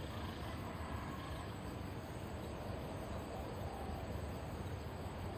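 Spotted dove cooing faintly, a few soft rising-and-falling coos over a steady background of low rumble and insect-like hiss.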